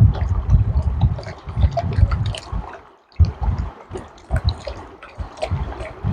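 Water sloshing in bursts, with small stones clicking as wet gravel is worked by hand.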